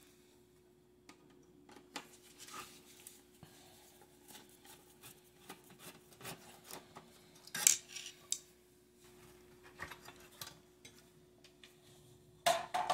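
Metal clinks and scrapes as a screwdriver, loose screws and an oven's sheet-metal bake-element housing are handled on a tile floor. There are two louder metallic clatters, about seven and a half seconds in and near the end, as the element is taken out of its tray.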